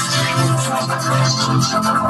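Dense electronic music with synthesizer-like sounds and a steady low tone underneath, playing without a break.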